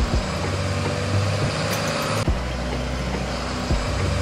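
Flatbed tow truck's engine running steadily as the truck drives by, a low hum with a few short low thumps.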